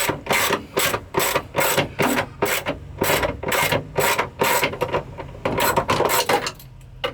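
Hand socket ratchet being worked back and forth to back out a dash screw, its pawl clicking in quick runs at about two to three strokes a second, stopping shortly before the end.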